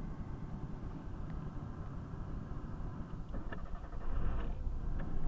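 Engine of a first-generation Hyundai Accent converted to a carburettor, running with a fast, steady knock that the owner takes for a valve, even with new hydraulic lifters; it gets louder about four seconds in.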